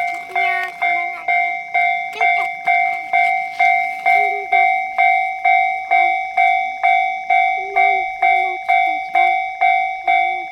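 Japanese railway level-crossing warning bell ringing steadily, a little over two strikes a second, each strike a clear metallic tone that dies away before the next.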